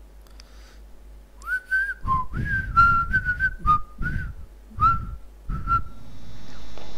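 A person whistling a short tune of about eight brief notes, starting about a second and a half in. Low thuds sound under each note.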